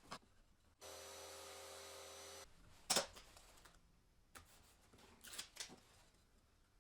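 A small electric power-tool motor runs briefly for about a second and a half, starting and stopping abruptly. A sharp click and a few fainter knocks of handling follow.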